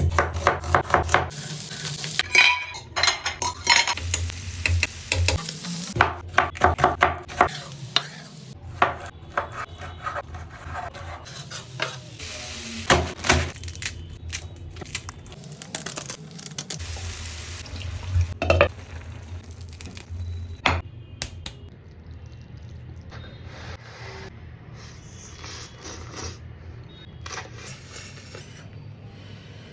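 Cooking sounds: metal utensils clinking and scraping against pots and pans while food is stirred, with some sizzling. The clinks come thick and fast for the first half, then thin out to occasional knocks.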